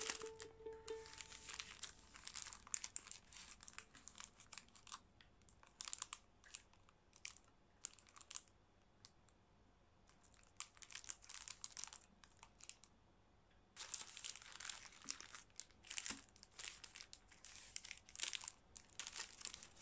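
Foil wrappers of Tunnock's Caramel Wafer four-packs crinkling as they are handled and restacked. The crackles come in irregular bursts, with a quieter lull about halfway through.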